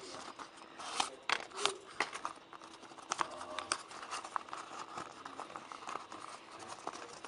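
Origami paper being folded and handled: a run of irregular crisp crinkles and creasing clicks, thickest during the first two seconds.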